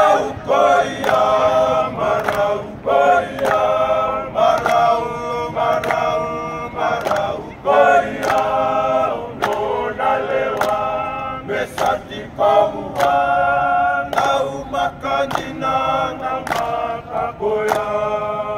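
A rugby team singing together unaccompanied in a huddle: a group of men's voices in harmony, sung in phrases with short breaks between them.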